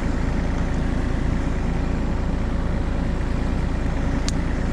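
Excavator's diesel engine idling steadily, a deep, even low hum, with one sharp click about four seconds in.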